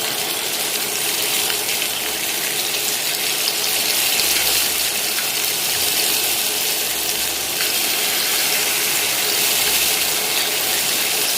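Marinated fish pieces shallow-frying in hot oil in a pan, giving a steady sizzle.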